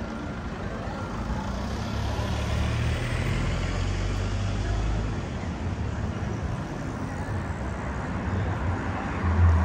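Street traffic: a motor vehicle passing close, its engine and tyre noise swelling and then fading over a few seconds, with a low thump near the end.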